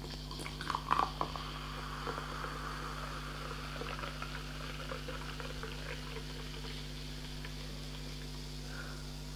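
Coca-Cola poured from a bottle into a glass: a steady fizz of carbonation as the glass fills, with a few louder splashes about a second in.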